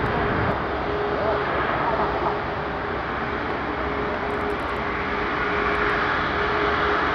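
Airbus A340-600's four Rolls-Royce Trent 500 turbofans running at low taxi thrust: a steady jet rumble with a steady whine running through it, growing slightly louder near the end as the aircraft comes closer.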